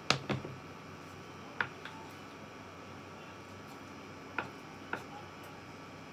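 A few light knocks and clicks as a plastic cutting board is set down on the counter beside the stove: two close together at the start, then single sharp ticks about a second and a half in and twice more near the end, over a faint steady hum.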